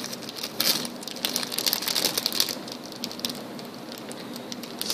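Plastic candy wrapper crinkling and crackling as a gummy mustache on a stick is unwrapped and pulled out of it.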